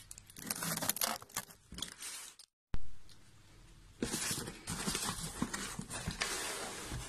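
A blade slitting packing tape on a cardboard parcel, with scattered scratches and clicks. After a brief dropout about two and a half seconds in, cardboard rustles and scrapes as the carton flaps are opened and the boxed tripod is handled.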